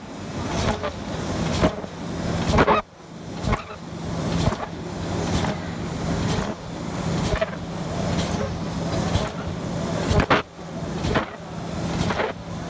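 Automatic slider zipper bag making machine running at about 60 bags a minute: a clunk from its stroke about once a second over a steady low mechanical hum.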